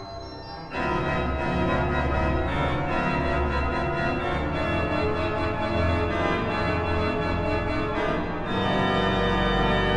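Instrumental soundtrack music with held, sustained chords, growing suddenly louder about a second in and shifting to a new chord near the end.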